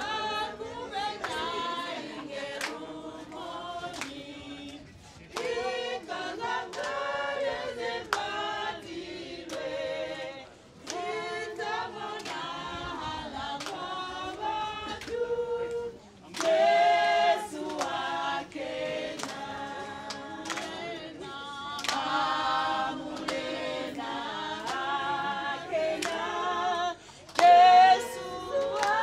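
A choir of voices singing a cappella, with women's voices prominent, breaking off briefly a few times.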